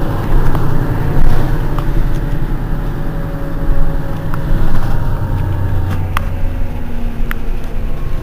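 Mercedes-Benz Citaro city bus running along, its engine a steady low drone that eases about five seconds in, with a few sharp clicks and rattles from the body, heard from inside the bus.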